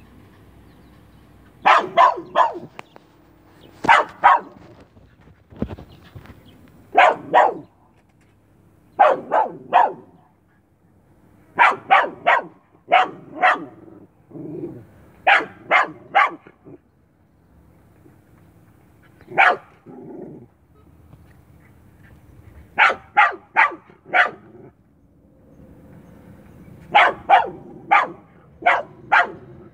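A dog barking in bursts of two to five short, sharp barks, with a pause of a few seconds between bursts.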